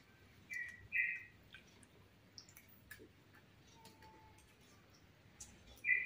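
Quiet eating sounds: faint scattered clicks of chewing and of a spoon on a plate. Two pairs of short, high chirps come about half a second in and again near the end.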